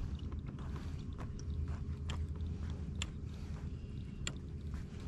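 Irregular sharp clicks and light taps from a kayak and its fishing tackle, about two a second, over a steady low rumble and a faint steady hum.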